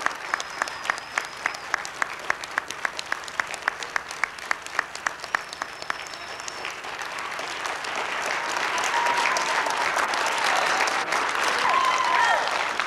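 Audience applause in a school auditorium. Steady, evenly spaced claps come about three a second at first, then the applause swells into a fuller, louder round of clapping from about six seconds in.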